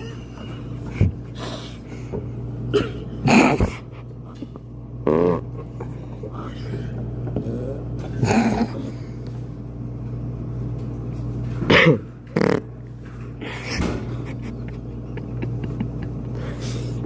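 Imitated fart noises: several short, pitched bursts a second to a few seconds apart, the loudest about three seconds in and about twelve seconds in, over the steady low hum of laundromat machines.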